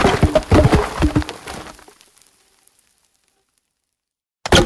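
Wood and foliage crackling and snapping in a rapid cluster of sharp cracks for about two seconds. Then silence, until a new burst of snapping starts near the end.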